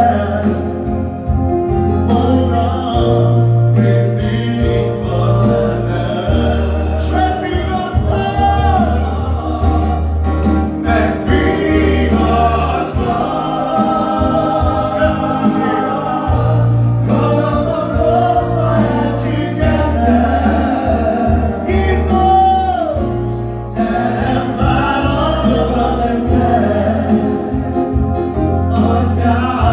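Live gospel praise song: a man sings lead through a microphone and PA, with backing voices joining in, over an electronic keyboard playing held bass notes and chords that change every couple of seconds.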